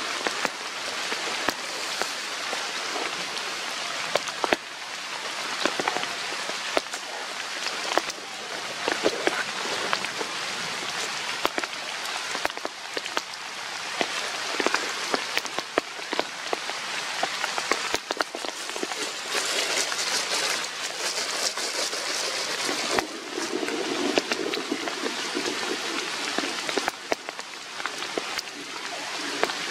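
Steady rain falling on leaves and leaf litter, with many sharp separate drop impacts.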